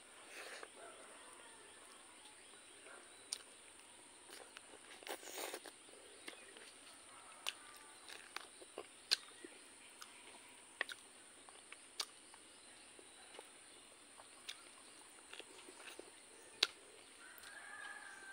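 Close-up eating sounds of someone chewing pork curry and rice by hand: sharp mouth clicks and smacks at irregular intervals, about a dozen, over a steady faint high hiss.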